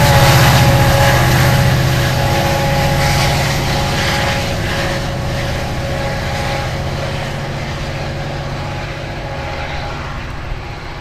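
Metra MP36PH-3 diesel locomotive pushing a departing commuter train, its engine running under power with a low drone and a steady whine. The sound fades steadily as the train draws away.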